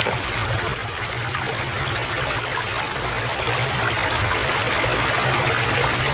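Stream water flowing and trickling steadily.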